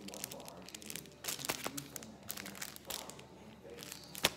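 Paper mailer envelopes and shipping papers rustling and crinkling as they are handled, in several short bursts, with a sharp tap near the end.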